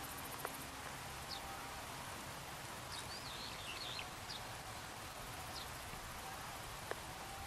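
Outdoor field ambience: a steady hiss of background noise with a few short, high bird chirps scattered through it, a small cluster about three seconds in, and a couple of faint clicks.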